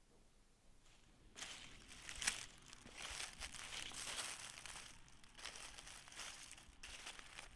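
Dry fallen leaves crunching and rustling, faint and irregular, starting about a second and a half in.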